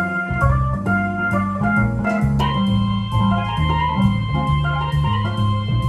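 Jazz organ with a Hammond-style sound, played on a keyboard: a bluesy right-hand line over a moving bass line. A chord is held from about two and a half seconds in, and a steady high tick keeps time throughout.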